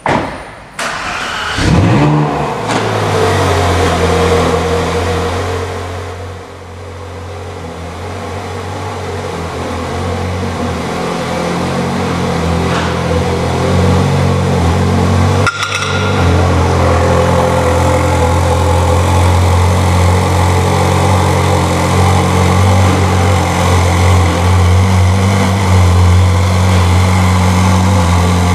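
Ferrari 458 Speciale's 4.5-litre V8 starting: it catches with a sharp rev flare about two seconds in, then falls back into a steady idle. There is one brief break in the sound about halfway through.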